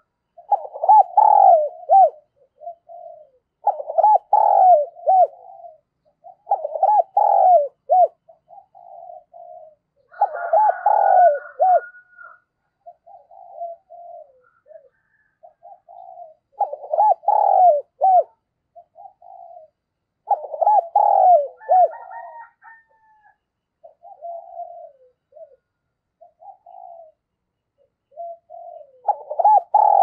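Spotted dove cooing: loud, repeated three-part phrases every few seconds, with softer, shorter coos in the gaps. This is the 'gáy' call used from a caged decoy to draw wild spotted doves.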